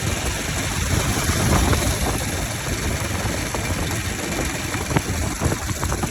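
Bajaj Pulsar 200 motorcycle engine idling with its air filter removed: a steady, rough idle, with a few sharp ticks about five seconds in.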